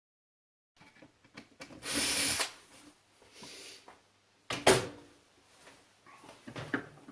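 Workshop handling noises from tools and parts being moved: a sliding scrape about two seconds in, a sharp knock near the middle, and light clicks and taps around them.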